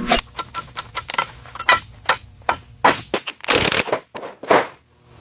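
Workshop clatter: a string of irregular sharp clicks and knocks, with two short rushes of noise a little past the middle.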